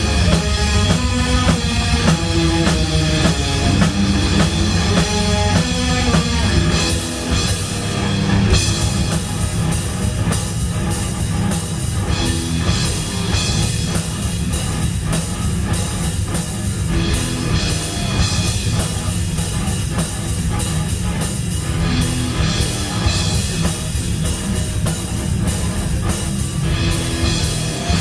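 Instrumental heavy rock music with drum kit and guitars and no vocals. A separate, stepping melodic line stands out for the first several seconds. About eight seconds in the full band thickens, with cymbals ringing over it.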